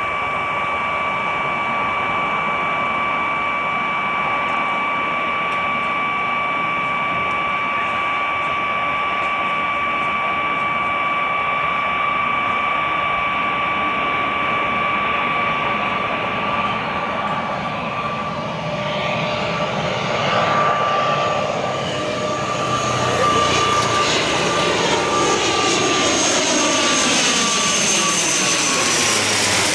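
ATR 72-600 twin-turboprop (Pratt & Whitney PW127-series engines) on final approach, a steady propeller drone with a high whining tone. It grows louder over the last ten seconds as the aircraft passes low overhead, and the sound sweeps and the tone drops slightly as it goes by.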